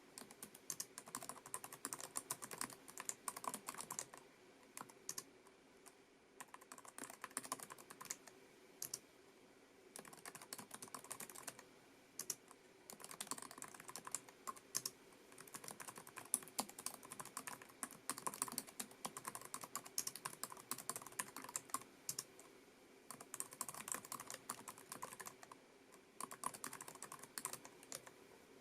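Typing on a Lenovo ThinkPad TrackPoint Keyboard II: rapid runs of light key clicks from its low-profile scissor-switch keys, broken by short pauses.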